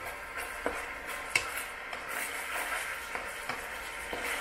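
Chili sauce sizzling in oil in a nonstick pan as a spatula stirs and scrapes through it, with two sharp clicks of the spatula against the pan in the first half.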